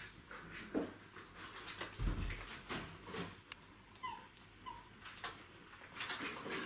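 38-day-old Czechoslovakian wolfdog puppies whimpering, with two short high squeaks about four seconds in, among scattered knocks and scuffles.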